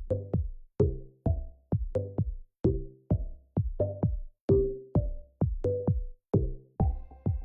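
Electronic background music with a steady drum-machine beat and pitched synth notes.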